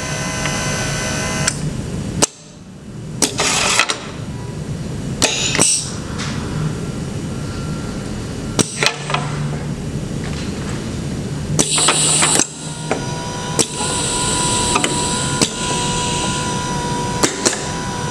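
Pneumatic actuators of a Festo modular processing station working: sharp clacks as cylinders and valves switch, and short hisses of exhaust air, three of them, over a steady machine hum.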